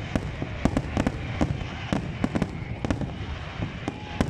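Fireworks display: a rapid, irregular crackle of sharp cracks and bangs, several a second, over a constant low rumble of bursts.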